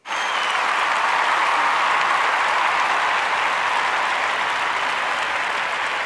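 A loud, steady hiss of noise that comes in suddenly and holds even throughout.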